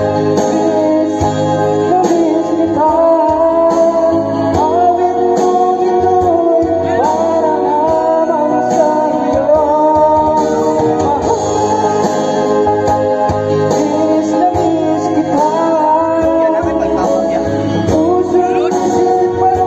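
Music from a Tagalog love ballad, with a guitar accompaniment and a gliding melody line over steady bass notes, in a break between sung verses.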